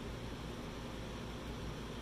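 Steady background hiss with a low hum underneath: room noise, with no distinct handling sounds.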